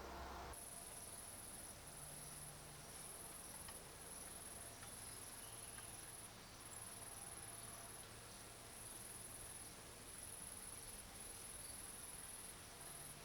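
Faint, high-pitched insect trilling in runs of about a second with short breaks, starting about half a second in.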